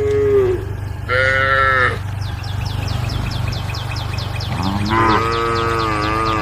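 Cattle mooing: three calls from the herd, a short one at the start, another about a second in, and a longer wavering moo near the end. A fast run of high chirps sounds in between.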